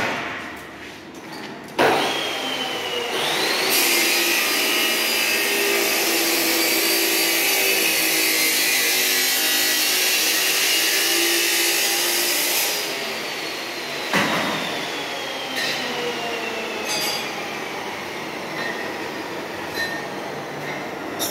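Electric power tool started about two seconds in, whining up to speed, then running loud and hissing for about nine seconds as it works metal. It is then switched off and whines slowly down in pitch over several seconds, with a sharp knock partway through the wind-down.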